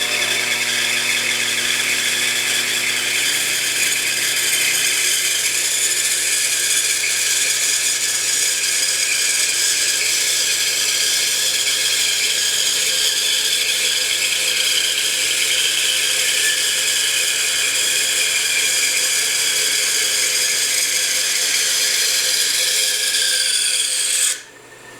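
Bandsaw running, its blade cutting through a thick wooden box blank to free a drawer; a steady sound that stops abruptly near the end.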